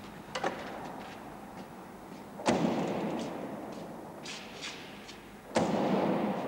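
Heavy wooden packing crates thudding down as they are loaded aboard a Douglas DC-3: two loud thuds about three seconds apart, each with a long echo, between lighter knocks and scuffs.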